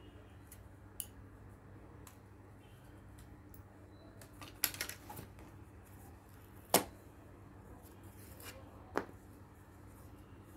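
Stiff cut-out board pieces of a self-assembly kit being handled and pulled apart: scattered light clicks and rustling, a short flurry of crackling about halfway through, then a sharp snap a little later and another near the end. A faint steady hum underneath.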